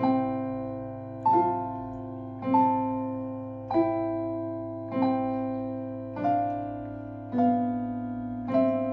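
Digital piano played slowly by a young child: a block chord struck about every second and a bit, each left ringing and fading until the next, in an even, steady pulse.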